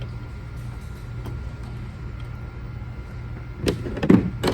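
A steady low hum, then a few sharp knocks and a short clatter near the end. This is a small flat-head screwdriver working the electrical connectors off a sweeper's brush motor.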